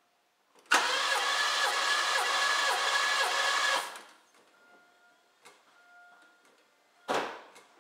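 Starter motor cranking a Pontiac Grand Am's 3.1-litre V6 for about three seconds in even rhythmic pulses, spinning without firing because the ignition is disabled and the spark plugs are out for a compression test. A short thump follows near the end.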